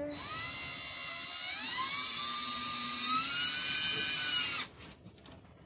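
Cordless drill driving a short screw into wood. Its motor whine rises in pitch over the first couple of seconds as it speeds up, holds steady, then stops abruptly after about four and a half seconds, leaving a few faint clicks.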